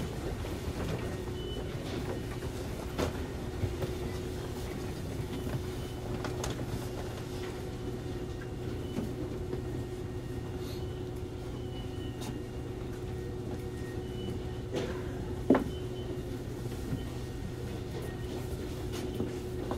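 Interior sound of a Hankyu 7000 series field-chopper-controlled train car with the air conditioning off: a steady low hum with a faint higher tone above it. A few light clicks, and one sharper click about fifteen seconds in.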